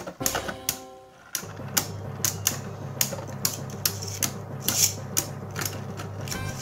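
Two Beyblade spinning tops clashing in a plastic stadium: a rapid, irregular clatter of sharp plastic clicks as they strike each other and the dish wall, picking up about a second and a half in.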